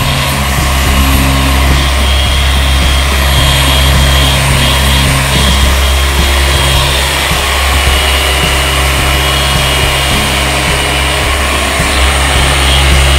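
Handheld electric car polishing machine running steadily with its pad pressed on the paint, a constant motor hum and whine whose pitch shifts slightly a few times. It is cutting compound into oxidised white paint to lift the stains.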